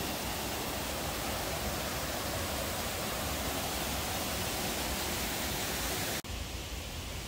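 Water cascading steadily over the granite blocks of a stepped waterfall fountain, an even rushing sound. About six seconds in it cuts off abruptly and gives way to a quieter, duller hiss.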